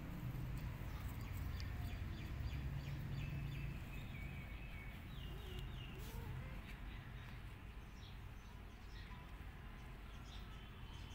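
Small birds chirping in the background, short high chirps scattered throughout, over a steady low outdoor rumble.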